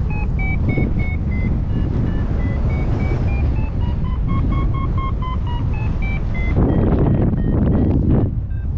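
XC Tracer Maxx variometer beeping about three times a second, its pitch sinking, rising and falling again as the climb rate changes; the beeping marks the paraglider going up in lift. Wind rushes over the microphone throughout and gusts louder near the end.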